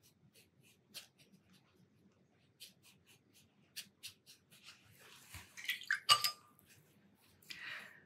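Faint small clicks and taps of painting tools being handled on the table, with a louder clatter and a short clink about six seconds in.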